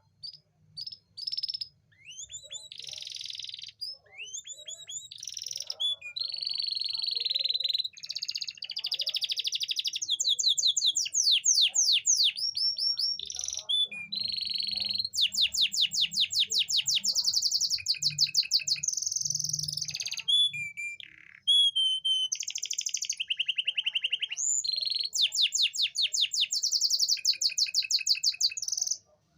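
Domestic canary singing a long, varied song of fast trills and rolls, with rapid runs of repeated notes and short sweeping notes. This song is played as a lure to bring a female canary into breeding condition.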